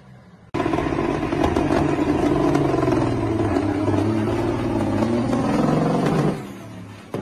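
Diesel semi-truck engine running hard under heavy throttle through tall straight exhaust stacks, a loud, deep, steady drone that fades off near the end.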